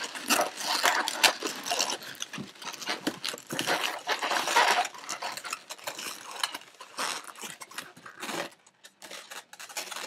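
Latex balloons squeaking and rubbing against each other as a gold round balloon is twisted and tied into red twisting balloons. The squeaks are busy for the first half, then come in scattered bursts.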